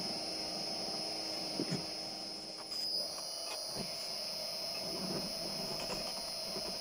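Uzor-N1 cold-forging machine's electric drive running with a steady high-pitched whine and hum while a steel bar is rolled through its bending rollers. About three seconds in the whine breaks briefly and then picks up again, and there are a few faint knocks from the bar.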